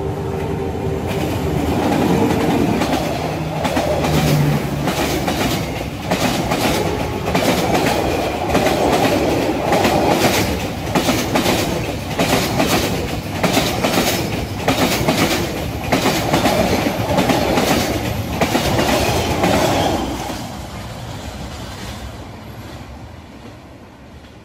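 Vietnam Railways SE7 passenger train, hauled by a D19E diesel-electric locomotive, passing close by. The locomotive goes by in the first few seconds, then the coaches' wheels click rhythmically over the rail joints. The sound fades steadily over the last few seconds as the train moves off.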